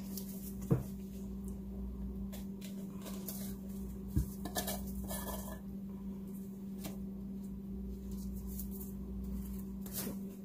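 Paint cups and containers being handled and knocked together: scattered clinks and taps, with two sharper knocks about a second in and about four seconds in, and some short scraping in between. A steady low hum runs underneath.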